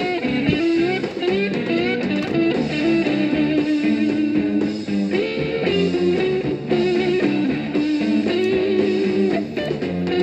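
Background music: an instrumental stretch of a song, led by guitar.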